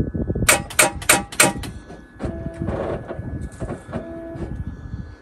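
BMW Z4 3.0 trying to start on a flat battery: a rapid clatter with several sharp clicks over the first two seconds, the starter failing to turn the engine over. A short electronic beep sounds twice later on.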